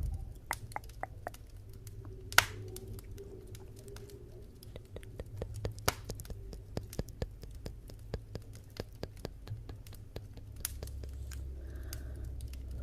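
Wood fire crackling: a steady run of small snaps and pops over a low rumble, with a louder pop about two and a half seconds in and another about six seconds in.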